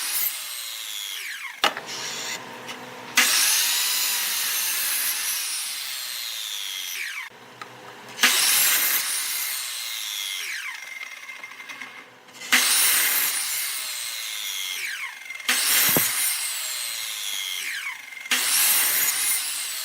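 A glued-up blank of different woods spinning on a wood lathe while a turning tool cuts it in about six passes, each a hissing scrape that starts abruptly and lasts a few seconds, with brief quieter gaps between.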